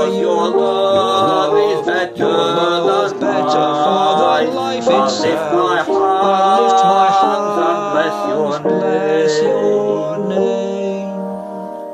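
A man sings a slow worship chorus and accompanies himself on piano. About ten seconds in, the voice stops and a final piano chord is held and fades.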